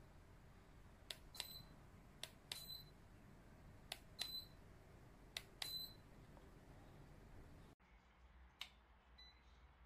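Four quick pairs of a sharp click and a short high beep, about a second and a half apart over a faint low hum, then one more click and a fainter beep near the end. This fits a DC ceiling fan's receiver beeping as remote-control buttons are pressed to step through its speeds.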